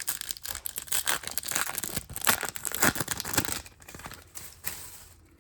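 Wrapper of a Topps Chrome Platinum Anniversary trading-card pack being torn open and crinkled by hand: a dense run of crackling and tearing that fades out near the end.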